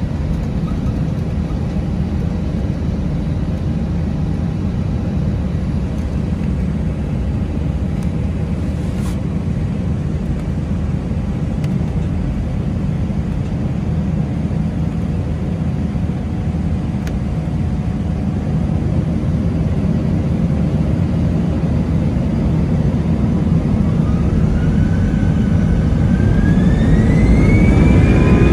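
Airbus A319 jet engines heard from inside the passenger cabin: a steady low rumble while the aircraft taxis onto the runway. In the last few seconds a whine rises steadily in pitch and the rumble grows louder as the engines spool up for the takeoff roll.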